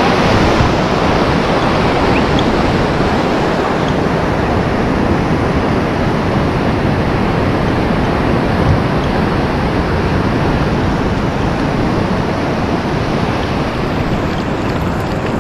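Sea surf breaking and washing in around the angler's legs: a steady, loud rush of waves, with some wind on the microphone.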